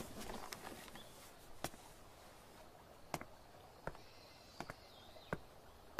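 Faint footsteps of two people walking on a path, a single sharp step every second or so. A faint high whistling tone drifts down slightly about four to five seconds in.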